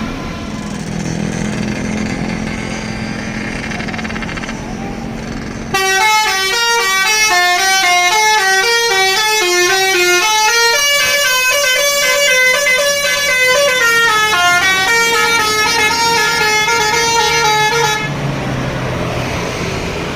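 A bus's basuri 'telolet' musical horn playing a quick melody of stepping notes for about twelve seconds, starting abruptly about six seconds in and cutting off near the end. Road and engine noise fills the time before and after it.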